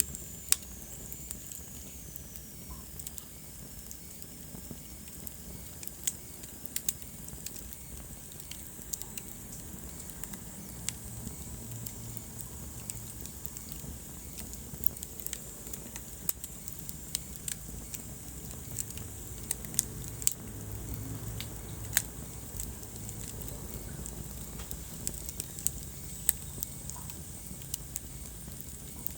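Wood fire burning in a fireplace: irregular sharp crackles and pops, with a dozen or so louder snaps, over a steady low rumble of the flames.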